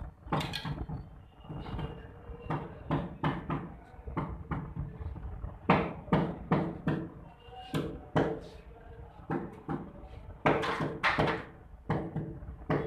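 Mallet knocking on a black granite stair slab, a string of short dull taps at irregular spacing, a couple a second, bedding the slab down into its mortar and levelling it.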